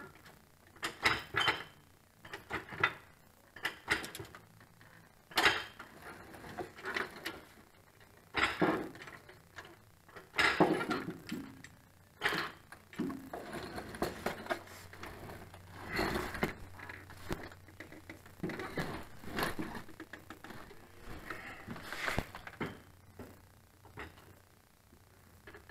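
Irregular metal clanks and clinks of a long hand tool working against the hydraulic pump and its mounting up under a B95 backhoe, some knocks ringing briefly.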